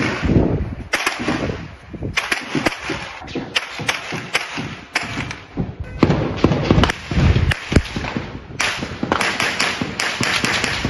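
An irregular series of sharp cracks and thumps, several a second at times, over a rough rumbling noise.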